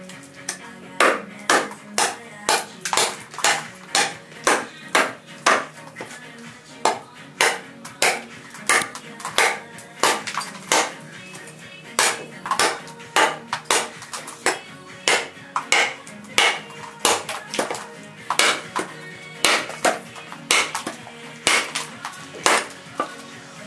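Large fixed-blade knife chopping in a run of sharp strikes, about two to three a second at uneven spacing, each with a short ring.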